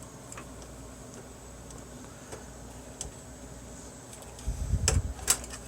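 Computer hardware handled on a workbench: a few faint clicks, then about four and a half seconds in a short clatter of knocks and clicks as a part is set down or picked up.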